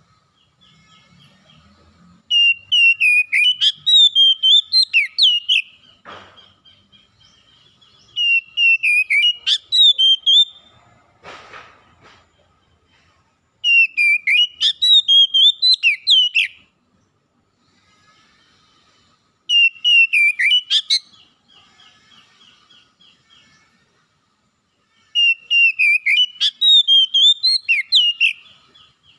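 Oriental magpie-robin singing: five loud phrases of quick, swooping whistled notes, each about three seconds long, with pauses of a few seconds between them.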